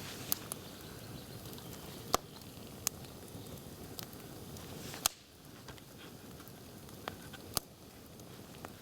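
Campfire crackling: scattered sharp pops of burning wood at irregular intervals, the loudest about two seconds in and about five seconds in, over a low steady rumble.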